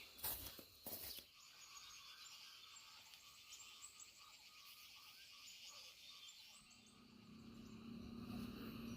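Faint chorus of frogs and insects calling, with a couple of sharp knocks in the first second or so. A low steady hum rises in from about seven seconds in.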